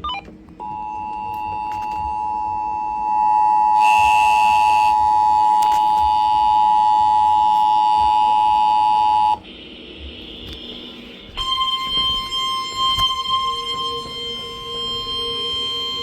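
Emergency Alert System attention signal from a radio: a steady two-note tone that cuts off about nine seconds in. About two seconds later a single steady alert tone starts, the NOAA Weather Radio warning alarm that comes before a tornado warning.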